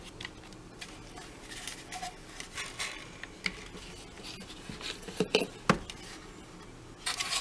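Hard plastic vacuum canister parts and filter being handled and fitted together: scattered light clicks and knocks with rubbing, two sharper clicks a little past the middle, and a burst of scraping near the end.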